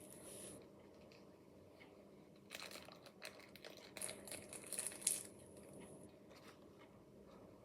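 Faint rustling and crinkling of packaging as a die-cast model airliner is slid out of its box. The rustling comes as a cluster of crackles and scrapes about a third of the way in, with one sharper crackle just after the middle.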